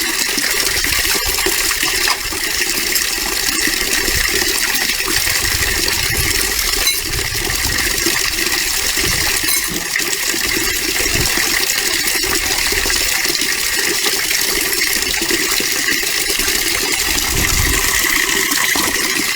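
Steady rushing of running water, loud and even throughout.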